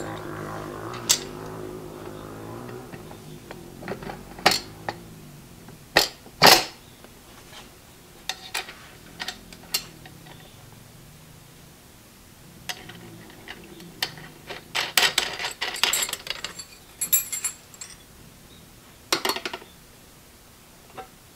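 Irregular metal clinks and clicks of a DRO display's steel mounting arm and its bolts and washers being fitted and tightened, a few sharper knocks and a quick run of clicks with quiet gaps between.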